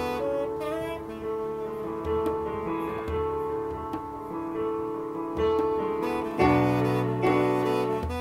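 Instrumental band music: keyboard chords with a saxophone holding long notes. About six seconds in it gets louder and fuller, with low bass notes coming in.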